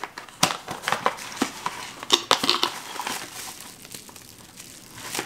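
Packaging crinkling and rustling by hand as a small gift is unwrapped, with sharp clicks and crackles through the first few seconds, then fainter handling.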